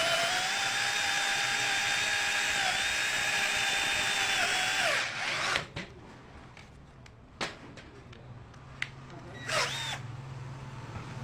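Ken 12V cordless drill driver running steadily, its motor whine dipping slightly under load as a 25 mm bit bores into wood, winding down about five seconds in. A few sharp knocks follow, then a short burst of the drill near the end.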